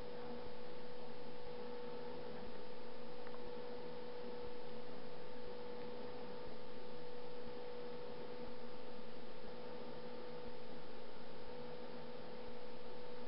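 Steady electrical hum with a faint hiss behind it. The level rises slightly for about a second every two seconds.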